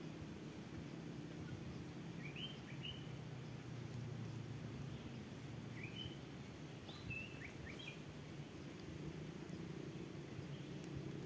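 Small birds chirping in short rising calls, a few at a time, about two and a half seconds in and again between six and eight seconds in. Under them runs a steady low outdoor hum.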